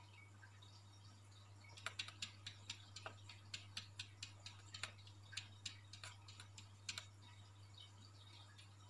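A cat's claws tapping and scratching against aquarium glass as it paws at the fish: a run of quick, irregular clicks, about two or three a second, starting about two seconds in and stopping about five seconds later.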